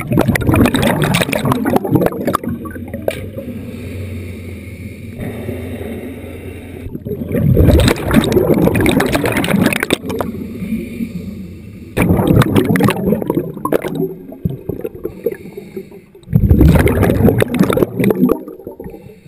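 Water rushing and bubbling over a submerged camera housing as it is moved through lake water, coming in several loud surges with quieter stretches between.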